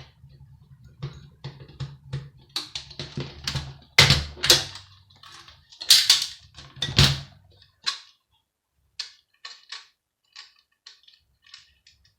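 Hand tools and metal parts clicking, knocking and rattling as a hard drive is worked loose from a satellite TV box's metal chassis. A low hum runs under it and stops about eight seconds in, leaving sparser clicks.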